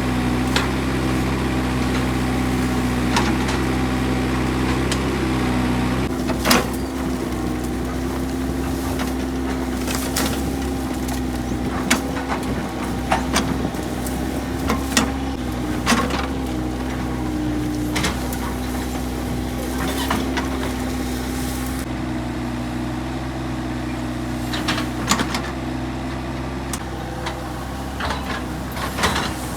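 Hydraulic excavator's diesel engine running steadily with a hum under load, while sharp metallic clanks and knocks sound every second or two from about a fifth of the way in.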